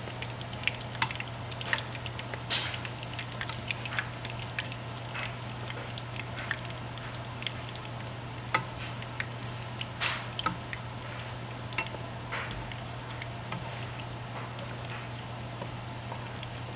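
Tomato and fish-sauce sauce sizzling and crackling in a pan on the stove, with irregular pops, as a wooden spatula stirs and breaks up the tomatoes. A steady low hum sits underneath.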